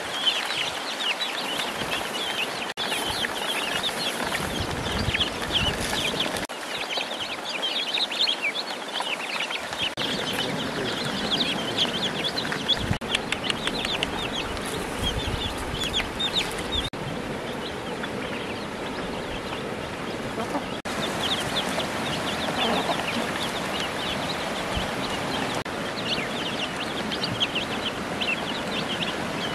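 A crowd of ducklings and chicks peeping nonstop, many short high peeps overlapping at once.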